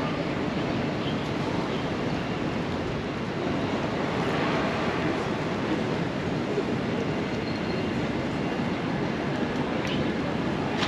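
Steady outdoor background din: a continuous low rumble and hiss with no distinct events, swelling a little about four seconds in.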